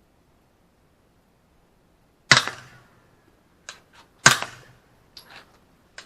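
Two loud gunshots about two seconds apart, with several fainter sharp cracks between and after them.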